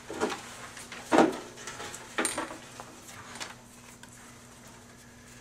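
A hand rummaging in a metal tin full of folded paper slips: about four short clanks and paper rustles, the loudest about a second in.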